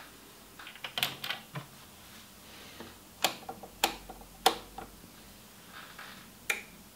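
Sharp mechanical clicks from a Pioneer A-335 stereo integrated amplifier's front-panel controls as it is switched on and its input selector knob is turned by hand. There is a cluster of clicks about a second in, three loud clicks about half a second apart in the middle, and one more near the end.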